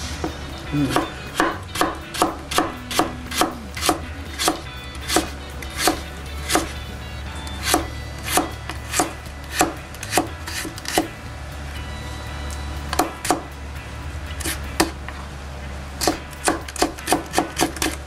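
Kitchen knife slicing a carrot into thin strips on a wooden cutting board: sharp knocks of the blade on the board, about two to three a second, with a few pauses of a second or two in the second half.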